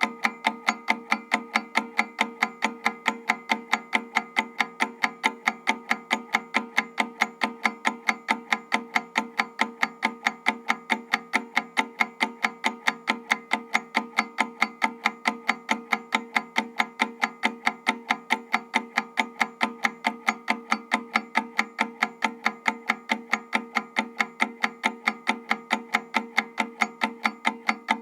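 Analog clockwork timer ticking steadily and evenly, about four ticks a second, over a faint steady ringing tone.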